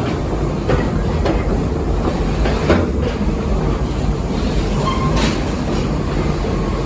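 Park safari train running on its track, heard from on board: a steady rumble with occasional clacks of the wheels over the rails.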